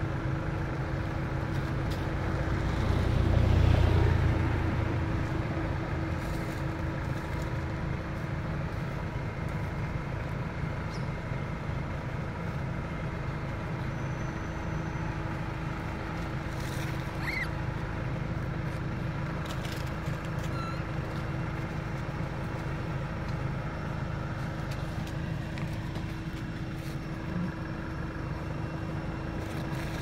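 Steady low engine rumble with a constant hum, swelling for a couple of seconds about three to four seconds in, as of a motor vehicle passing close by.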